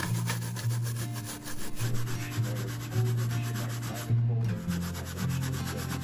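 A toothbrush scrubbing textured PVC faux-stone wall panels in rapid, even back-and-forth strokes, cleaning the grout haze off the stones.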